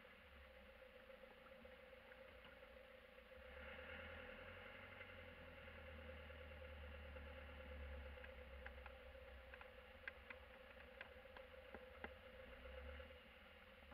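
Faint cabin noise of a van driving: low engine and road rumble with a steady hum, growing a little louder a few seconds in, and a scattering of light ticks and knocks near the end.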